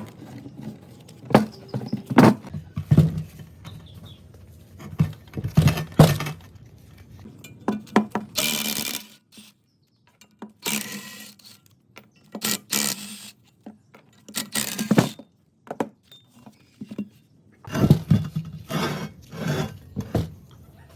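Workshop clatter of metal parts being handled: irregular knocks and clinks, broken by several short hissing bursts.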